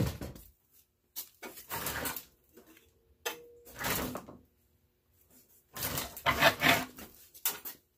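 Sheet-metal computer tower case being handled and shifted: a loud knock at the start, then three bouts of scraping and rattling of metal panels, with a brief squeak a little past three seconds in.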